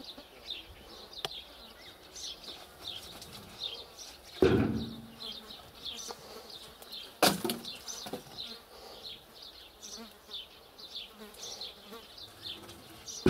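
Birch logs thrown off a truck bed landing on the ground with two heavy thuds, about four and a half and seven seconds in. A high, rapidly repeated chirping goes on behind them.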